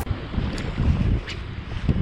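Wind buffeting the microphone in low rumbling gusts, strongest about a second in and again near the end, with a few faint short ticks.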